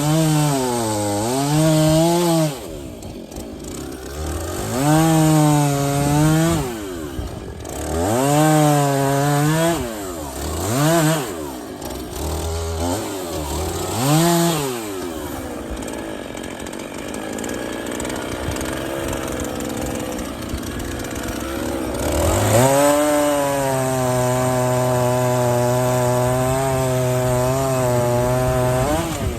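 Two-stroke chainsaw bucking firewood logs: about five short cuts, the engine pitch sagging in the middle of each and climbing again, then idling at a lower level for several seconds. Near the end it runs one long cut at a steady high speed that stops abruptly.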